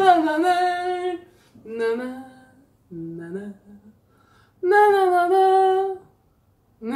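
A woman singing a wordless "na-na-na" tune in a few short phrases with pauses between, the longest note held about a second and a half, a little past halfway.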